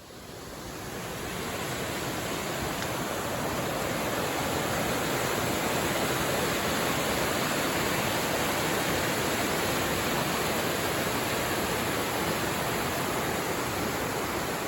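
Steady rushing of flowing water, fading in over the first couple of seconds and then holding even.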